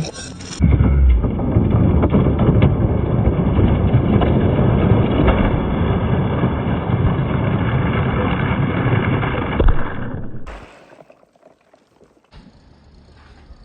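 Many marbles rolling down wooden tracks, clattering on metal and splashing into water, making a dense, steady rush. It stops abruptly about ten and a half seconds in, leaving it much quieter.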